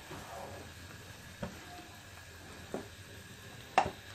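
Milk with fried bread pieces boiling in a nonstick frying pan, a faint steady bubbling hiss. A few light taps of the spatula against the pan break through it, the sharpest near the end.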